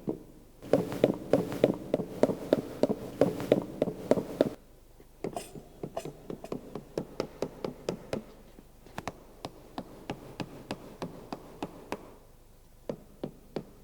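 Fresh concrete mold being tapped on its sides in a quick, even series of knocks, about three to four a second, to drive out trapped air voids after the first layer has been compacted. A steady hum sounds under the knocks for the first four seconds.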